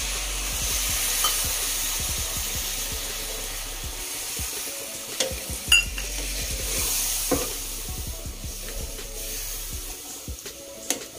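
Hot masala sizzling as water is poured into the pan, then a spatula stirring and scraping the broccoli and potato curry through a steady sizzle, with a few sharp clicks of the spatula against the pan.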